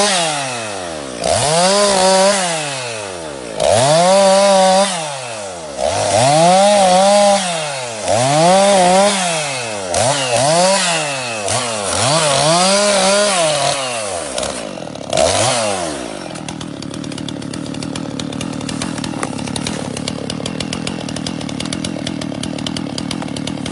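Petrol chainsaw revved to full throttle and let back down about eight times, every two seconds or so, as it cuts into green coconuts. About two-thirds of the way through it drops to a steady idle.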